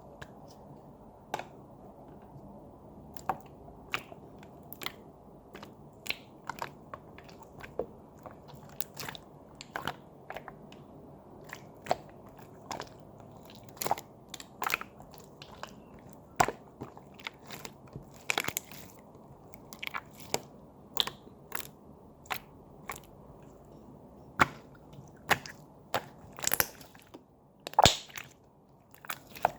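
Clear slime made from soothing gel being squeezed and pressed by hand, giving irregular sharp clicks and pops about one or two a second, over a low steady hiss.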